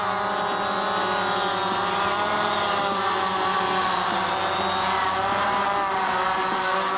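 DJI Phantom quadcopter's four motors and propellers, fitted with prop guards, whining steadily in flight, with several pitches wavering gently up and down.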